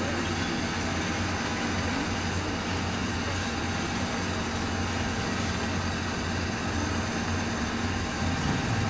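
Cabin noise of a 2010 MAN Lion's Classic CNG city bus under way: a steady low drone from its noisy rear differential over the running of the engine and road noise.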